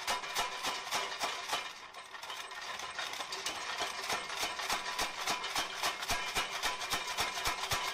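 Home-built mechanical power hammer pounding rapidly and evenly, about five blows a second, on a fuller set against the inside edge of a piece of angle iron, stretching that edge so the angle iron curves. The blows ease off briefly about two seconds in, then pick up again over a steady hum.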